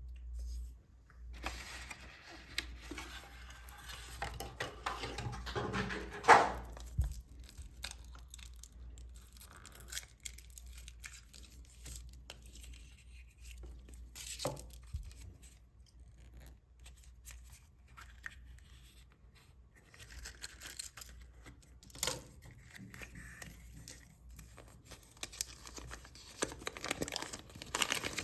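Foil wrappers of chocolate surprise eggs being torn open and crinkled by hand, with irregular rustling and a few sharp clicks, the loudest about six seconds in.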